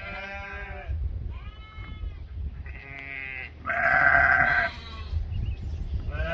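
Sheep bleating, four or five separate calls about a second each, the loudest one about four seconds in.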